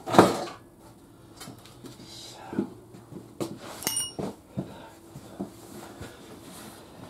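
Metal tools and parts knocking and clanking as they are handled, with a loud knock just after the start and a single ringing metal clink about four seconds in.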